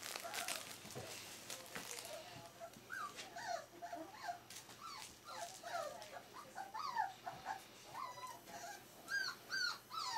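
Four-week-old smooth-faced Pyrenean Shepherd puppies whimpering and yipping in many short, high squeals that rise and fall, several a second, with rustling of newspaper near the start.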